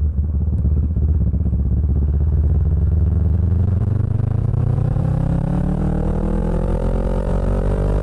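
2016 Kawasaki Ninja 650 parallel-twin engine through an Arrow aftermarket exhaust, running at low revs at first, then accelerating with its pitch climbing steadily from about halfway.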